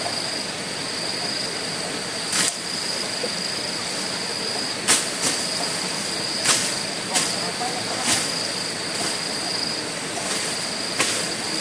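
A steady high-pitched whine over a constant hiss, broken by sharp knocks at irregular intervals, about seven in all, a second or two apart.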